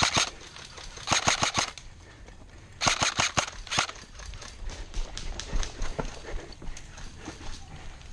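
Airsoft guns firing short rapid bursts of sharp clicks, one group about a second in and another about three seconds in, followed by scattered fainter shots.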